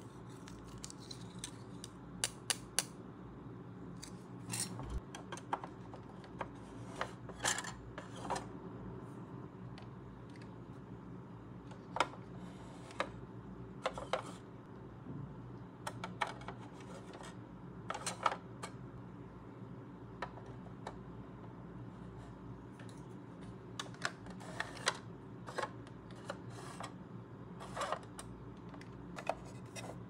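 Scattered hard-plastic clicks and taps as the toy refrigerator's clear shelves and pull-out drawer are handled and fitted. A faint steady low hum runs underneath.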